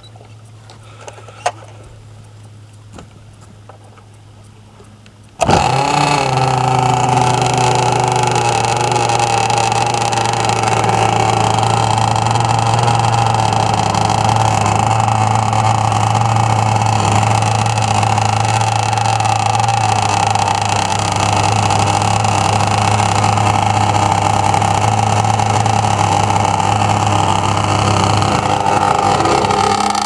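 Zenoah two-stroke petrol engine of an RC race boat starting about five seconds in, then idling steadily at an even pitch.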